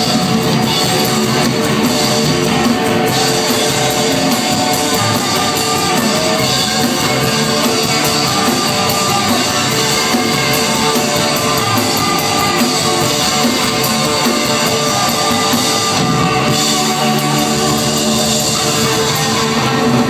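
Rock band playing live and loud: electric guitars over a drum kit with cymbals, recorded from the crowd on a phone.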